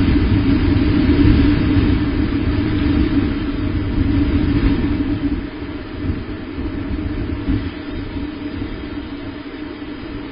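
Continuous low rumble picked up by the nest camera's microphone, loudest in the first few seconds and easing off over the second half.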